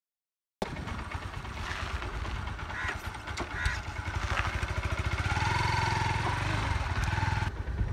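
Motorcycle engine running with a steady, rapid low firing beat. It cuts in abruptly about half a second in.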